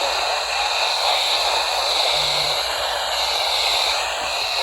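Steady radio static hiss from weak reception, with the automated weather-warning voice faint and half-buried beneath it.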